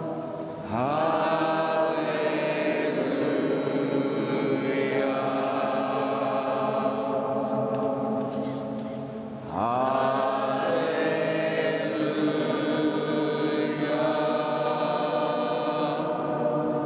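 Closing music of sustained, chant-like voices in two long held phrases. Each phrase opens with an upward swoop, one about a second in and one about halfway through.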